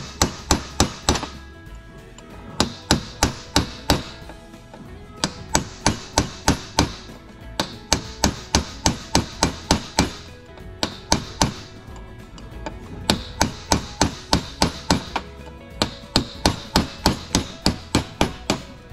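Ball-peen hammer tapping a chisel, metal on metal, in quick runs of about five blows a second with short pauses between, knocking the shaft seal out of a MerCruiser raw water pump housing.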